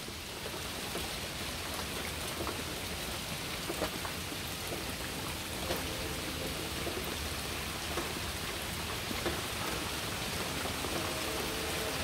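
Steady rain falling, with a few drip clicks. Under it a faint distant horn sounds several notes at once: briefly about six seconds in, then again near the end.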